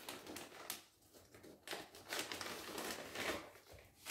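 Clear plastic bags crinkling and rustling as they are handled, coming and going several times.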